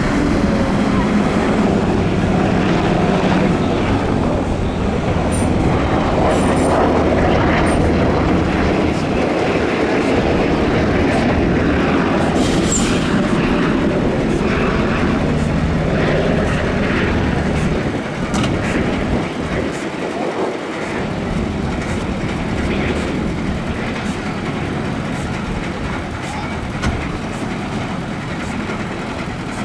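A fire engine's heavy engine running steadily under a continuous rushing noise, a little quieter after about eighteen seconds.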